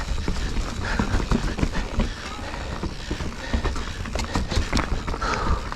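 A full-suspension mountain bike riding over rocky singletrack: the tyres knock over rocks and the frame and drivetrain rattle in quick, irregular clicks over a steady low rumble.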